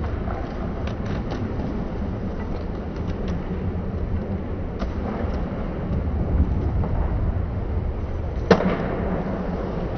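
Skateboard wheels rolling on a concrete bowl, a steady low rumble, with a few light clicks and one sharp knock of the board on the bowl's lip about eight and a half seconds in.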